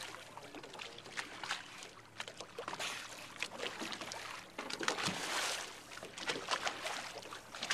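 Water splashing and sloshing at a boat's bow in irregular bursts, with sharper splashes as a young Pacific white-sided dolphin breaks the surface alongside.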